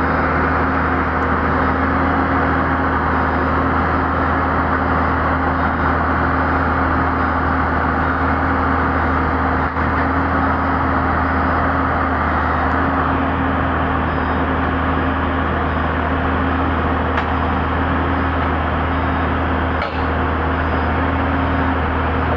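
Pindad excavator's diesel engine running steadily under load as the machine moves up onto a lowbed trailer, with a couple of brief knocks.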